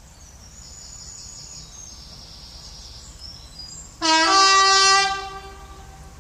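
Class 14 diesel-hydraulic locomotive D9537 sounding its horn: one loud blast about a second long, starting about four seconds in.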